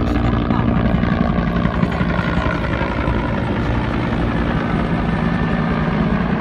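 Helicopters flying overhead: the steady, rapid chop of their rotor blades with engine noise.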